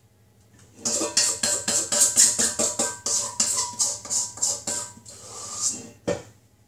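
Dessert spoon scraping and tapping rapidly around a stainless-steel mixing bowl, about five strokes a second, with the bowl ringing, as the last of the brownie batter is scraped out. A single dull thud near the end.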